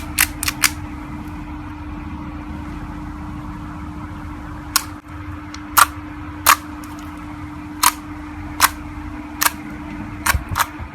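Slime being squeezed and worked by hand, trapped air bubbles popping in sharp clicks at irregular intervals, about a dozen, with a few in quick succession near the start and near the end. A steady low hum runs underneath.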